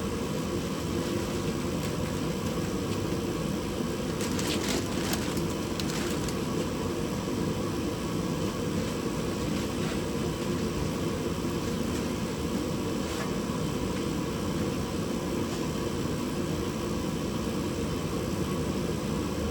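Garage space heater running, a steady low rushing noise, with a few faint clicks and taps about four to six seconds in.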